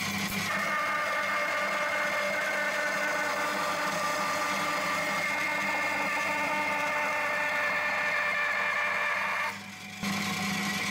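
Band saw running and cutting through a wooden board, a steady whine with several held tones. It drops away briefly near the end, then picks up again.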